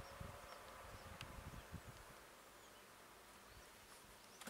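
Near silence: faint outdoor ambience with a thin insect buzz and a few soft, distant bird chirps.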